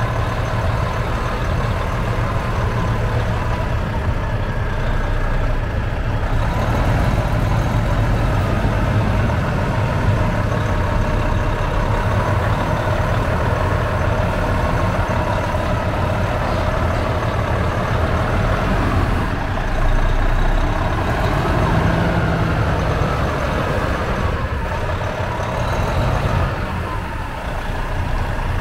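Heavy diesel truck engine idling steadily, a low, even drone, with a brief swell about twenty seconds in.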